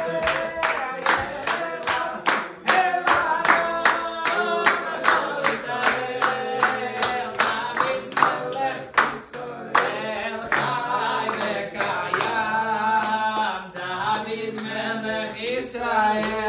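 A small group of men singing a celebratory song together and clapping their hands in time to a steady beat.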